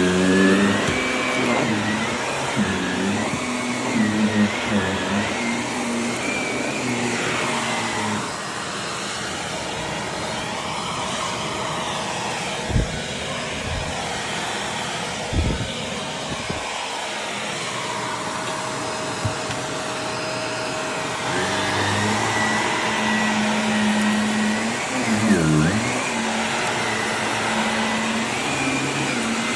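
Vacuum cleaner running steadily, its motor pitch wavering up and down. A few short knocks come in the middle.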